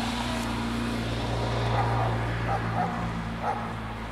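Steady low hum of an approaching diesel multiple-unit train's engine, with a dog barking a few times in the background from about halfway through.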